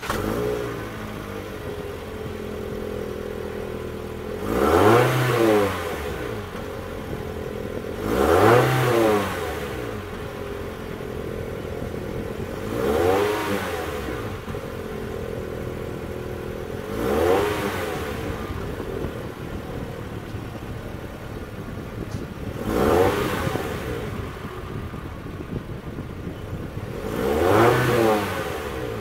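2018 Toyota C-HR's 2.0-litre four-cylinder engine idling, blipped six times. Each rev rises and falls back to idle within about a second, roughly every four to five seconds.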